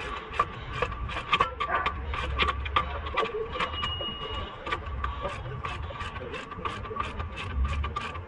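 Hand ratchet wrench clicking in quick runs as a suspension bolt is turned, with short pauses between swings of the handle.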